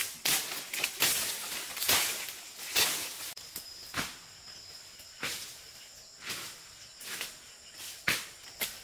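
Footsteps crunching and rustling through leaf litter and undergrowth, denser at first, then about one a second. From about three seconds in, insects buzz steadily at a high pitch beneath the steps.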